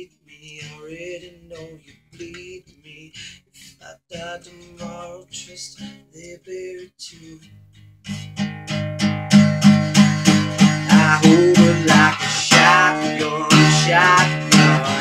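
Solo Takamine acoustic guitar with a male voice singing. It starts soft, with sparse picked notes and quiet phrases, and about halfway through breaks into loud, driving strumming.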